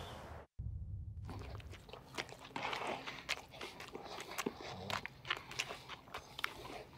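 Two men biting into and chewing sub sandwiches, a quiet run of irregular crunches and wet mouth clicks. Outdoor wind noise cuts off about half a second in.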